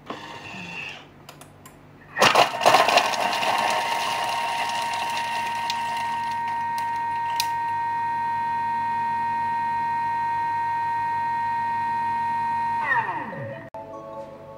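Thermomix TM6 food processor blending at speed 6 for about ten seconds: a rough, noisy start as the blade bites into the ingredients, settling into a steady high motor whine. Near the end the whine falls in pitch as the blade spins down.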